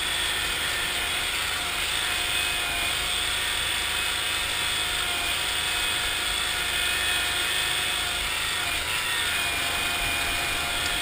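A 1974 Cushman Trackster's engine runs steadily as the tracked vehicle drives along, its pitch shifting only slightly.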